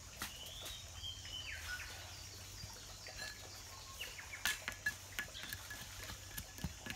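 Small birds chirping with short gliding calls. From about halfway, a run of sharp knocks, about two a second, from hand tools and stones striking stone and packed earth.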